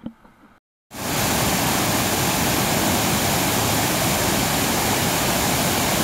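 Water spilling over a low river weir into a rocky pool: a loud, steady rush that starts abruptly about a second in.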